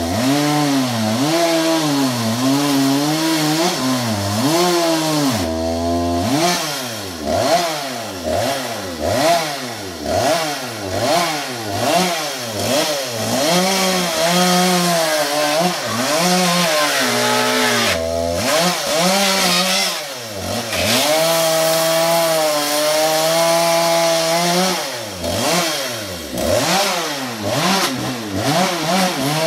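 Chainsaw cutting wood, its engine speed sagging under load and picking up again about once a second, running at a steadier pitch for a few seconds at a time near the middle and later on.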